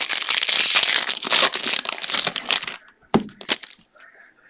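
Foil trading-card pack wrapper crinkling loudly as it is torn open and crumpled in the hands, for nearly three seconds. Two sharp clicks follow near the end.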